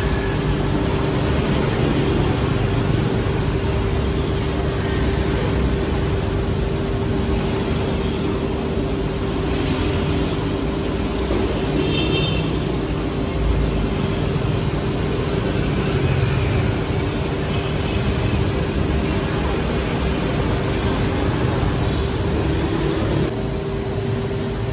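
Steady street traffic noise, with a constant hum running under it.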